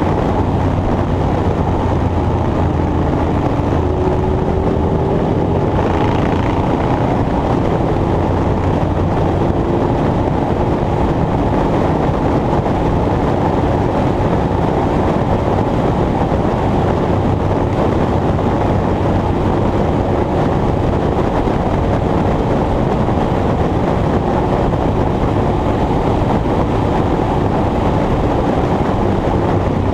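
Steady, loud, low-pitched mechanical rumble of a running engine or machine, with a faint held hum under it and no breaks.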